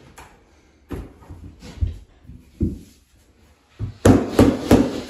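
Rubber mallet tapping click-lock flooring planks to seat their joints: a few scattered knocks, then a quick run of about five louder knocks near the end.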